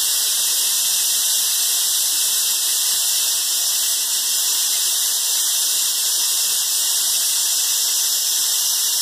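Viraj pressure cooker whistling: a loud, steady hiss of steam venting under the whistle weight, the sign that pressure has built up inside. It is one of the whistles counted to time the cooking.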